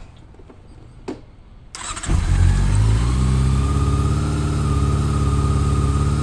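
Honda CB400 Super Four's inline-four engine started on the electric starter: a short click about a second in, a brief starter whir, then the engine catches about two seconds in and settles into a steady idle.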